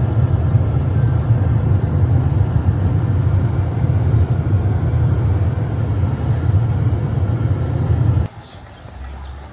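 Steady low road rumble of a car driving, which cuts off abruptly near the end.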